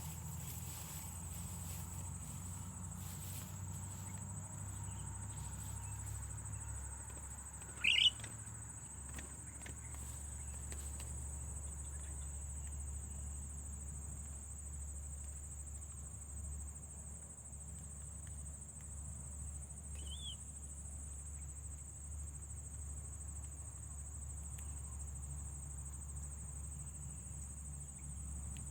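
A steady high insect trill, like crickets, goes on throughout over a low rumble. A bird gives one short, loud rising chirp about eight seconds in, and a fainter one around twenty seconds in.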